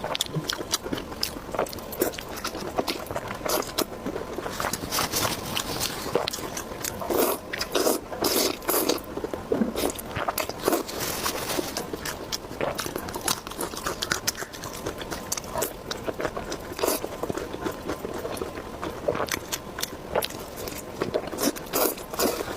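Close-miked eating: a person biting into and chewing crunchy food, with dense crackling crunches and the odd scrape.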